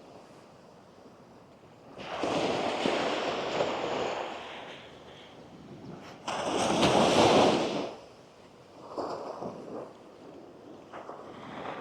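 Small waves breaking and washing up the sand in surges, the loudest one crashing in suddenly about six seconds in and dying away.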